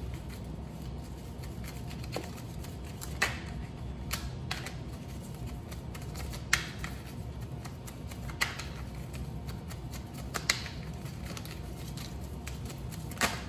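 A deck of tarot cards being shuffled by hand: a soft rustle of cards broken by a few sharp card snaps spread through it, over a low steady hum.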